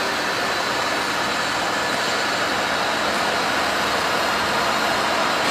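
Machinery running with a steady, even noise, without separate strokes or knocks.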